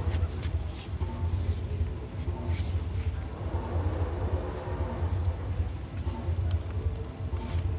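Crickets chirping in a regular pulse of one or two short high chirps a second, over a steady high insect trill, with a continuous low rumble underneath.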